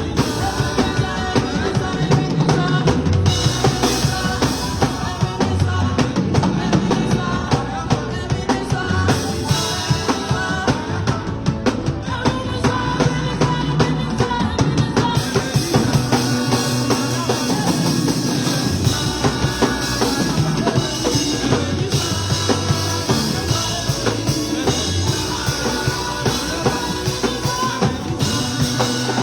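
Live band music with a full drum kit, bass drum and snare keeping a steady beat under bass and other instruments.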